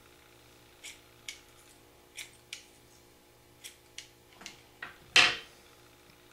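Kitchen shears snipping fishing line: a series of short, sharp clicks as the blades close, then one louder clunk about five seconds in as the shears are set down on the wooden table.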